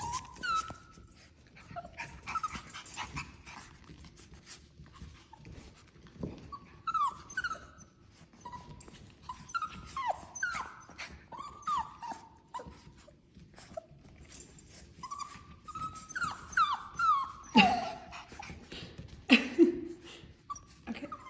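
Young teddy bear puppies whining and yipping as they play, in short high cries that slide down in pitch, scattered throughout. Two louder cries come near the end.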